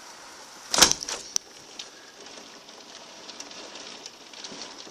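Heavy rain pouring down in a steady hiss, with one sharp knock just under a second in and a few light clicks after it.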